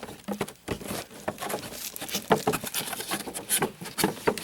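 Hands handling and moving the toy's packaging: irregular rustling and crinkling with many small clicks and taps.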